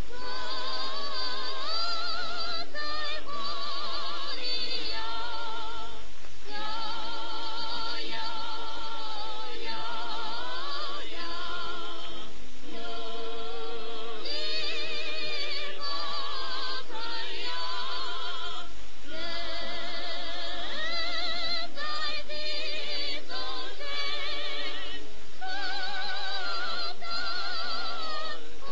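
Singing with a strong vibrato, in phrases of a few seconds separated by short breaths, on a 1930s film soundtrack.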